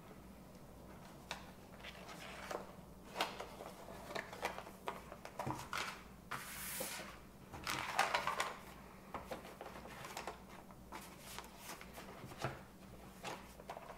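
Vinyl LP and its plastic and paper sleeves being handled: rustling, soft taps and sliding sounds, with a longer sliding swish about halfway through.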